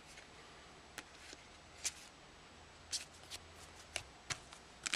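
Baseball trading cards being flipped through by hand: a few short, sharp card-on-card clicks and slaps, about one a second.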